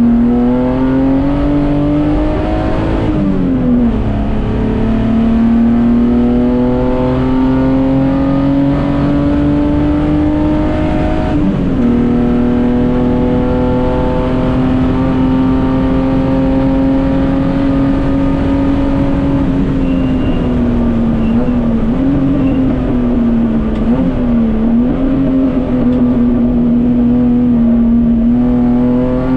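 Datsun 240K Group C race car's straight-six engine at racing speed. The revs climb and drop sharply with upshifts about three and eleven seconds in, then run fairly steady, with brief dips and wobbles around twenty and twenty-four seconds in as the driver lifts through corners.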